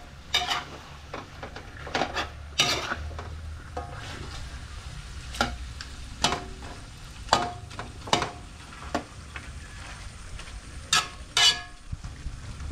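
Chicken pieces sizzling in a pot as a metal ladle stirs them, clanking against the pot about a dozen times at irregular intervals. The chicken is being seared in fish sauce, an early stage of cooking puchero.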